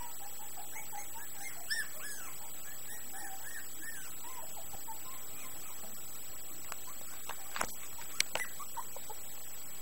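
Young puppies squeaking and whimpering as they jostle to nurse: a run of short, high, arching squeaks in the first four seconds or so, thinning out, then a few sharp clicks and knocks near the end.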